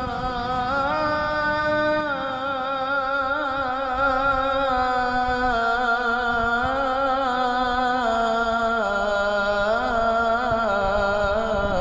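A voice singing an Arabic salawat in praise of the Prophet, drawing out long, slowly gliding melismatic notes between the lines of the verse.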